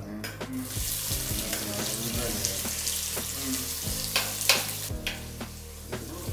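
Chopped onions sizzling loudly in hot oil in a stainless-steel pot, the hiss starting suddenly about half a second in. A steel spatula scrapes and clinks against the pot several times as the onions are stirred, most sharply about four and a half seconds in.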